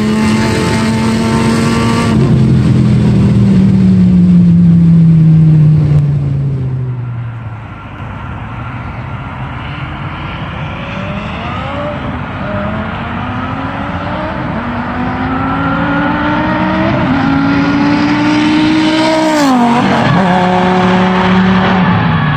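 Dodge Viper's naturally aspirated V10, with Stage II heads and cam, long-tube headers and a catless exhaust, heard from the roadside. Its note first falls and fades, then the car comes back accelerating hard through several upshifts, the pitch climbing and dipping at each shift, and it passes with a sharp drop in pitch near the end.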